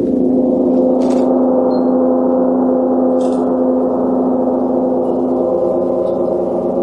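A large hand-hammered gong struck once and ringing on in a loud, sustained wash of many overlapping tones that barely fades.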